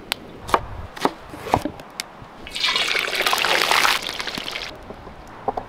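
Wood fire crackling with a few sharp pops, then, about two and a half seconds in, hot oil sizzling loudly as quails fry in a large pot, dying down a little before the end.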